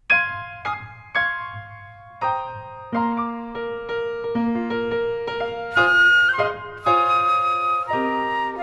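Instrumental music: a few struck piano chords that ring and fade, then a fuller passage of held notes with a flute-like woodwind melody from about three seconds in.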